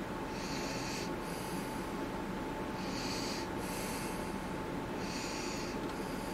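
A person breathing through the nose close to the microphone: three short hissy breaths about two seconds apart, over a steady whine and room noise.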